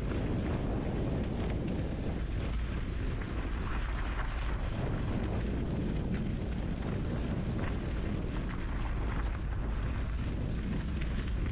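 Mountain bike riding on a dirt trail heard through a bike- or helmet-mounted action camera: a steady rumble of wind buffeting on the microphone and tyres on dirt, with small scattered rattles and clicks.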